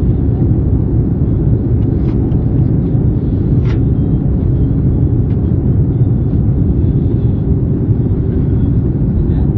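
Steady low roar inside the cabin of an Airbus A310 airliner descending to land: engine and airflow noise heard through the cabin wall beside the wing, with a few faint clicks.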